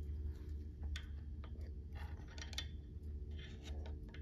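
A thin flat-bladed metal tool scraping and clicking as it tucks a new crankshaft oil seal into the nose of a Lycoming engine's crankcase: a handful of short, sharp clicks and scratchy scrapes over a steady low hum.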